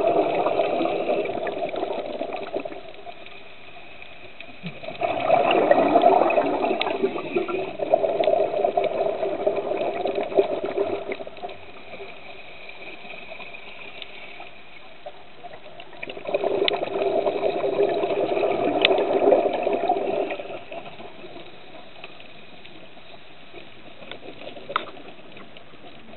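Scuba regulator exhaust bubbles as a diver breathes out underwater, in three long bubbling gushes. The first fades out about three seconds in, the next runs from about five to eleven seconds and the last from about sixteen to twenty seconds, with a quieter steady hiss between them. A single sharp click comes near the end.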